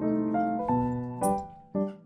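Background piano music: a melody of single notes over low sustained chords, each note struck and then fading.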